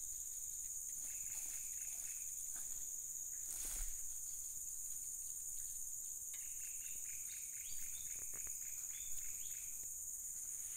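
A steady, shrill insect chorus sounds throughout. Faint runs of quick repeated bird notes come over it, the longest starting about six seconds in, and there is a single soft knock near the middle.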